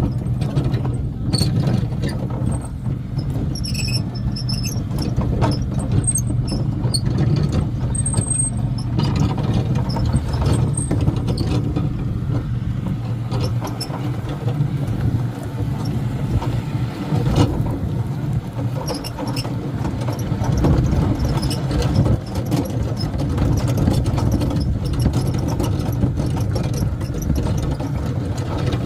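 John Deere X350 lawn tractor engine running steadily while towing a train of carts, with high squeaks and rattles from the towed carts, most noticeable in the first several seconds.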